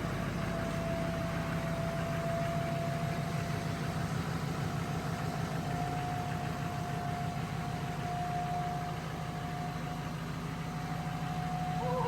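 A steady mechanical running sound: a low hum with a thin, even whine above it that rises slightly in pitch partway through.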